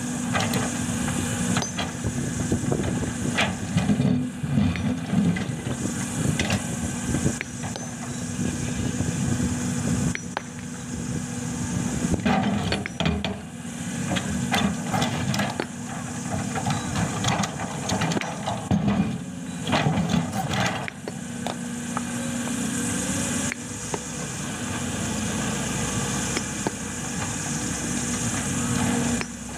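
Sumitomo excavator's diesel engine running unevenly under heavy load, with repeated sharp knocks as the bucket works against rock.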